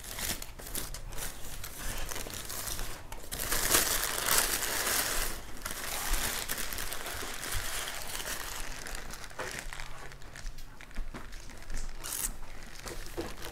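Paper wrapper of a Subway sandwich crinkling and rustling as it is opened, with irregular crackles that are loudest for about two seconds around four seconds in.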